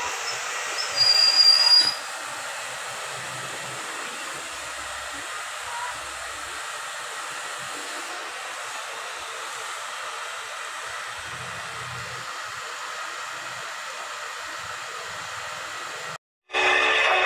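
A steady hiss, with a brief louder burst holding a thin high tone about a second in. It cuts out for a moment near the end, and then music begins.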